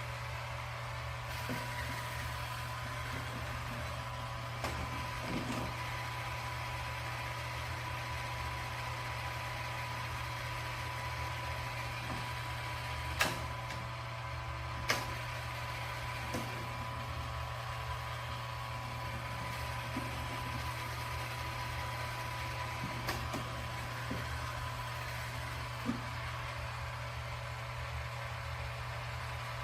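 Robot vacuum running steadily: a constant motor hum with a whine, and a few sharp knocks, the two loudest about halfway through.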